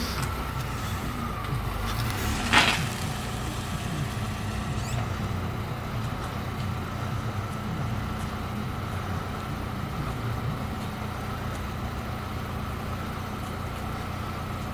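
Steady low hum of an idling engine, with one short noisy burst about two and a half seconds in.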